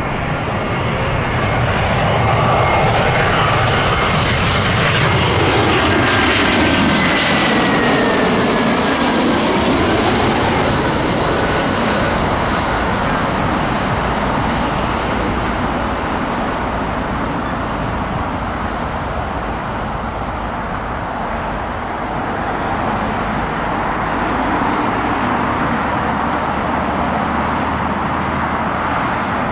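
Jet airliner passing low overhead on final approach to land. Its engine whine falls in pitch as it goes over, loudest in the first ten seconds, then a steady rushing engine noise lingers as it moves away.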